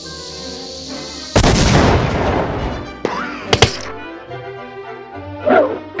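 Cartoon soundtrack music with sound effects: a firework rocket's fuse fizzing with a steady hiss, then a loud whoosh as the rocket fires about a second and a half in, fading off. A sharp crack comes near the middle.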